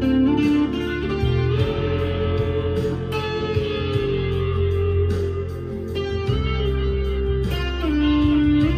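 Harley Benton SC Custom II single-cut electric guitar played through an amp's crunch channel: picked notes and chords ringing on with an overdriven edge.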